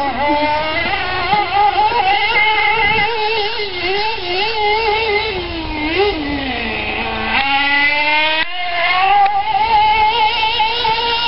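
Small engine of a radio-controlled buggy running and revving up and down continually, its pitch rising and falling with the throttle. It drops low about seven seconds in, cuts out briefly, then climbs again.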